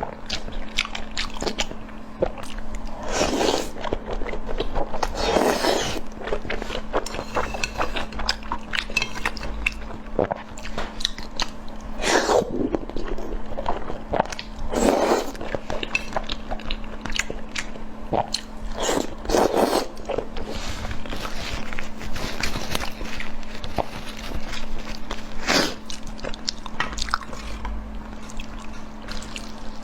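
A person biting and chewing food close to the microphone, with irregular crunches and wet mouth clicks, over a steady low hum.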